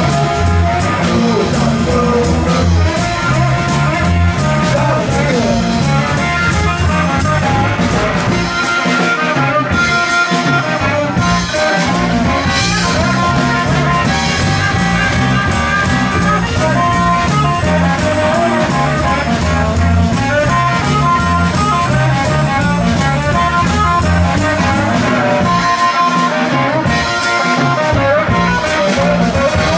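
Live rock band playing: electric guitar over bass guitar and drum kit, with no let-up.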